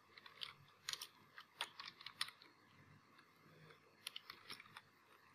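Faint computer keyboard keystrokes as a word is typed: a few separate key presses over the first couple of seconds, a short pause, then a quick run of keys about four seconds in.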